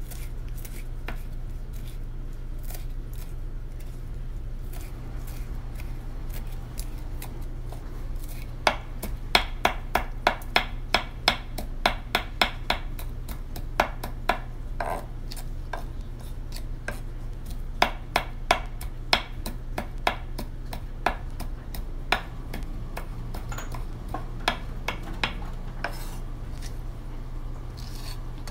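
Chef's knife chopping parsley and yellow hot pepper on a wooden cutting board: soft taps at first, then from about a third of the way in, quick runs of sharp knocks of the blade on the board, several a second. A steady low hum runs underneath.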